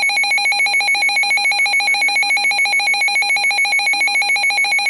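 Weather-alert radio's built-in alarm beeping rapidly, about seven harsh electronic beeps a second, signalling that a warning alert has come in.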